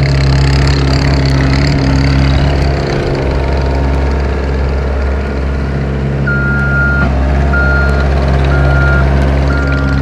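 Gehl skid steer's engine running steadily under work. About six seconds in, its backup alarm starts beeping about once a second as it reverses.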